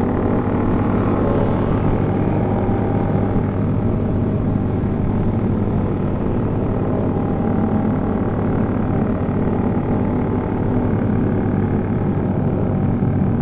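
Sport motorcycle's engine running at a steady cruise, an even drone, with wind rushing over the microphone.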